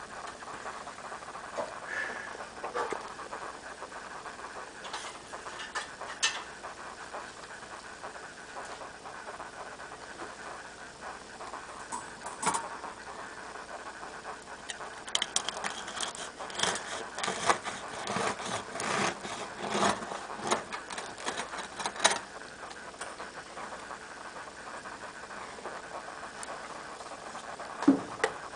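A knife sawing through the crust of a freshly baked loaf, a quick run of crackly cutting strokes between about 15 and 22 seconds in, with a few scattered knocks from handling the loaf on a wire rack before it.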